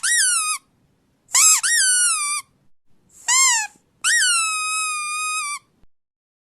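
Squeaky dog toy squeezed four times, each a high-pitched squeak that jumps up in pitch and then falls away. The last squeak is held longest, about a second and a half, drooping slowly before it cuts off.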